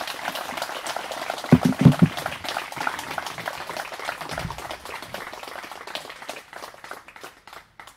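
Audience applauding: a dense patter of clapping that thins out and dies away near the end. A few low thumps stand out about a second and a half in.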